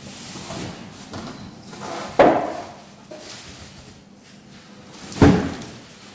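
Unboxing handling: packaging rustling and scraping while an air purifier is pulled out of its carton, with two sharp loud knocks about two and five seconds in.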